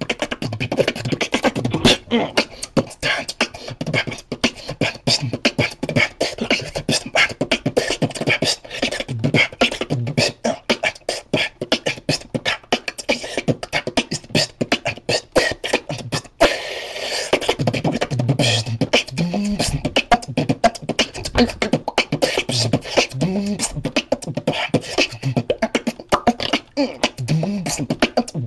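Beatboxing: a fast, dense stream of mouth-made kicks, snares and clicks. About halfway through there is a short hissing sound, and after it low hummed bass notes that bend up and down come in several times under the percussion.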